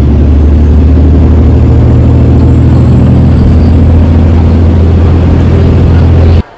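Diesel railcar's engine running with a loud, steady low drone, heard from inside the passenger cabin while the train is under way. It cuts off suddenly near the end.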